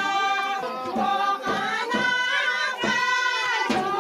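A group of voices singing together in long, held notes, with a few thumps marking the beat.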